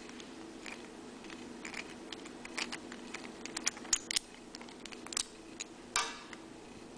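Small plastic and metal clicks and taps as the parts of a Galaxy Pegasus Beyblade spinning top are handled and fitted together by hand. They come irregularly, the loudest about six seconds in, over a faint steady hum.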